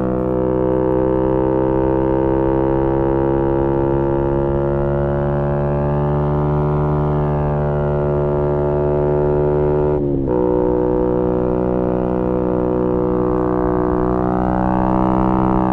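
Yamaha MT-125's single-cylinder 125 cc four-stroke engine through a GPR aftermarket exhaust, heard on board while riding. The engine note climbs slowly under throttle, breaks off briefly and drops in pitch about ten seconds in at a gear change, then runs on again.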